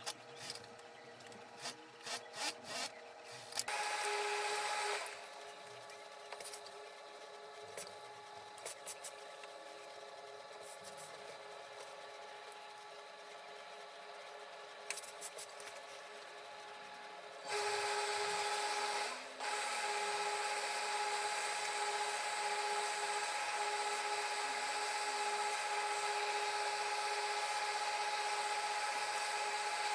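A machine running with a steady hum and hiss: briefly about four seconds in, then continuously from about two-thirds of the way through, with a short break soon after it starts. A few short clicks come in the first few seconds.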